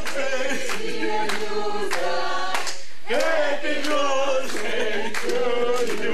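A choir singing in long held notes.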